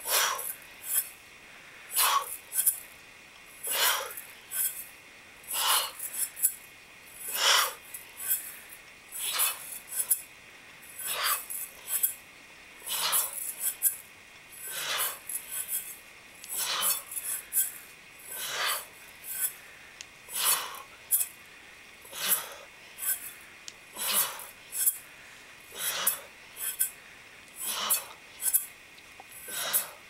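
Rhythmic rasping bursts of air noise, roughly one a second with a stronger one about every two seconds, in time with two people's repeated steel mace swings.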